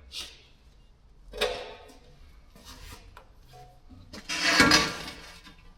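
Metal workshop parts being handled, knocking and clattering. There is a short knock about a second and a half in and a louder, longer clatter about four and a half seconds in.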